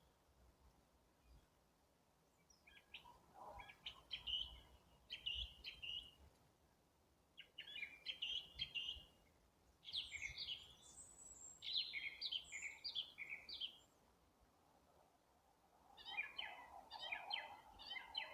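Spring birdsong: a songbird sings a series of short, quick phrases with brief pauses between them, starting a few seconds in.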